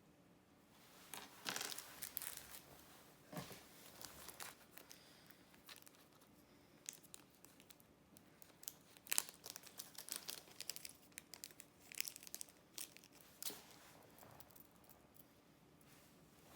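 Packaging being handled and opened by hand: irregular crinkling, rustling and tearing, on and off for most of the stretch, dying away near the end.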